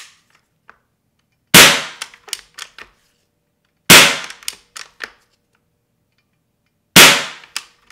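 Umarex Gauntlet .25 regulated PCP air rifle dry fired three times, two to three seconds apart, each sharp report followed by a few lighter clicks of the action. It is fired without a pellet to blow residual cleaning oil out of the transfer port.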